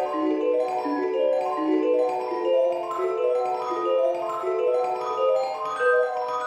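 Background music: a quick, bouncing melody of mallet-percussion notes, vibraphone- or marimba-like.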